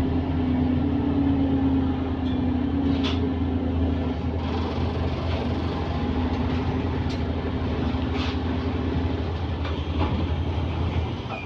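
Bus diesel engine running steadily, heard from inside the passenger cabin, with a few short rattles; the low engine drone drops away near the end.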